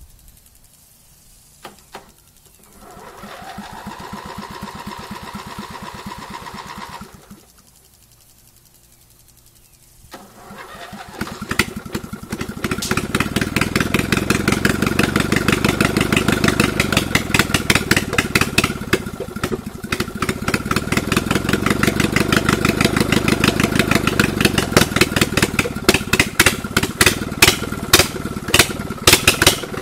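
Racing lawn mower's small engine cranked by its starter for a few seconds without catching, a rising then steady whine. After a pause it is cranked again, fires and runs loud and rough with no exhaust header fitted. The firing turns uneven near the end, which the owner puts down to the choke sticking on.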